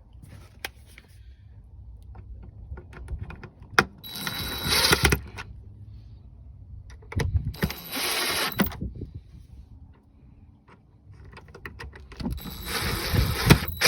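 Power drill/driver running three times, about one to two seconds each, driving screws that fasten the mount onto the back of an LED taillight, with small clicks and knocks of handling between the runs.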